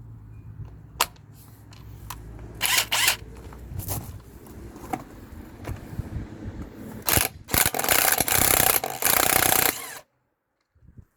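Porter-Cable 20V Max cordless impact wrench run in short bursts: a brief burst about 3 s in and a longer one of about two seconds near the end, with clicks and handling noise between.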